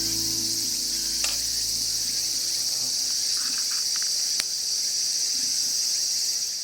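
Steady, high-pitched chorus of insects, crickets by the sound of it, trilling without a break. A guitar tune dies away in the first two seconds, and there are two faint sharp clicks, one just over a second in and one past four seconds.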